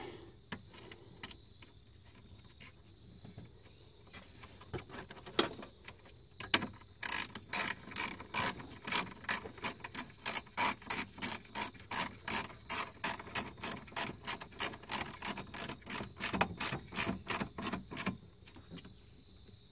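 Ratchet wrench clicking as a nut is tightened onto a stud on a truck's engine-bay fuse block. A few scattered clicks come first, then steady ratcheting of about three or four clicks a second from about seven seconds in, stopping shortly before the end.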